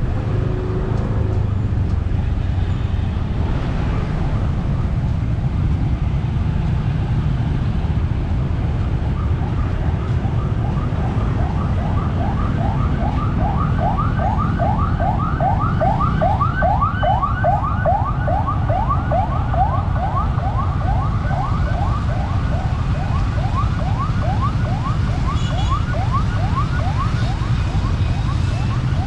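Emergency-vehicle siren in fast yelp mode, rapid rising sweeps about three a second. It starts about a third of the way in, is loudest in the middle and fades later, over a steady low rumble of street traffic.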